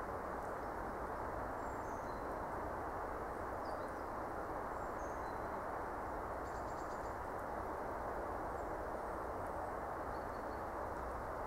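Steady, even background hiss of an open winter outdoors, with a few faint, short, high bird chirps scattered through it.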